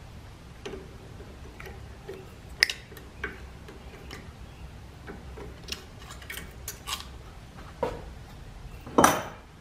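Pliers and wire handled against a metal fixture: a scattering of sharp metallic clicks and small knocks, with a sharp click about two and a half seconds in and a louder clatter about nine seconds in.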